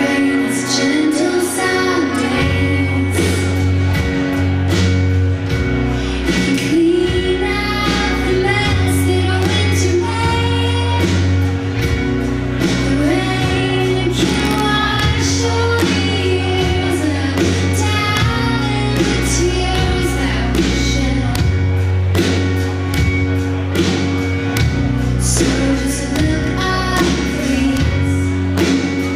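Live band playing a slow ballad: a woman singing lead over bass, guitar and drums, with cymbal strokes, in the reverberation of a large hall.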